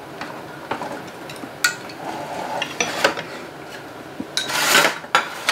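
Chopsticks and spoons clicking and tapping against bowls and the serving pan during a meal: scattered light clinks, with a brief louder noisy burst about four and a half seconds in.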